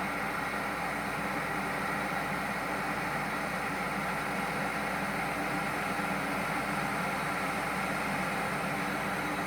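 Water at a full rolling boil in a glass electric kettle, giving a steady bubbling rush with no change in level.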